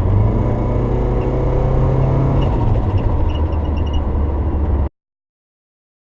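Turbocharged Subaru Forester's flat-four engine running loudly, its pitch drifting slightly, then cutting off abruptly about five seconds in.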